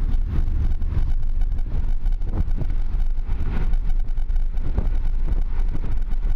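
Steady low rumble of a moving car heard from inside the cabin, with wind noise on the microphone.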